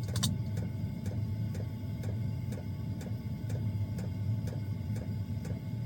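Small diesel air heater running: a steady low hum with its fuel pump ticking evenly, about three times a second. There is one sharper click just after the start.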